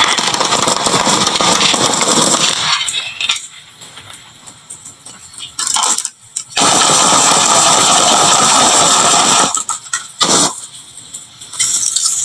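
Marbles rolling and clattering down a HABA wooden slope marble run and dropping into toy trucks: a dense rattle that eases off about three seconds in, returns loud from about six and a half to nine and a half seconds, with a few separate clacks near the end.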